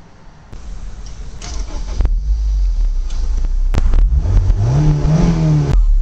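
Honda S2000's four-cylinder engine and exhaust, a low rumble that grows louder, then a rev that climbs and falls back over about a second and a half near the end.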